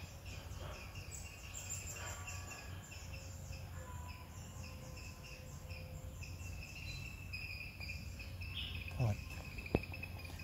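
Insects chirping in rapid, evenly repeated high-pitched pulses over a low steady hum. Near the end there is a short falling swish and a sharp click.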